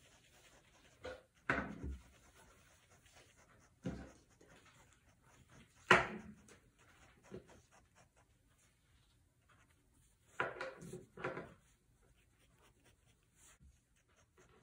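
Desk handling sounds while drawing: a handful of short knocks and rubs, the sharpest about six seconds in, with faint fine pen strokes on paper between them.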